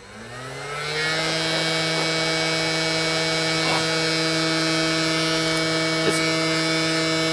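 Hershey's s'mores maker's electric blower fan spinning up, its whine rising in pitch over about a second, then running at a steady speed with a constant hum.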